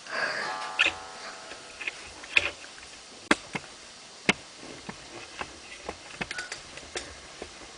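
A brief creaky squeak at the start, then scattered sharp clicks and clinks of small hard objects being handled.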